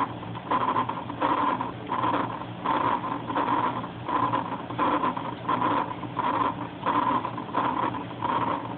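Recorded aortic stenosis heart sounds played through a speaker: a systolic murmur with each heartbeat, repeating evenly about three beats every two seconds.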